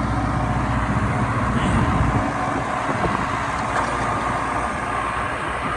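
Kubota tractor's diesel engine running steadily, its low rumble easing slightly about two seconds in.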